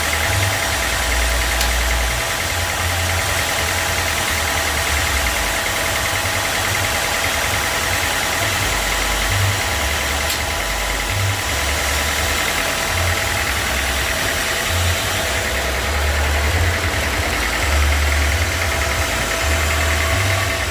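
Sawmill machinery running steadily: a continuous engine-like drone with an uneven low rumble and a few steady whining tones.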